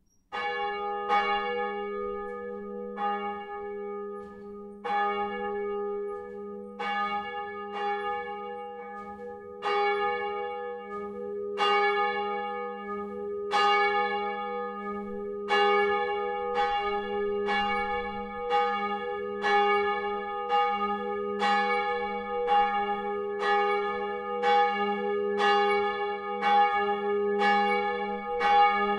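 A single bronze church bell from a 1948 Petit & Fritsen three-bell peal, hung on a straight stock, being swung up. The clapper strikes just after the start, the first strokes come unevenly, and they then settle to about one a second, each ringing on into the next.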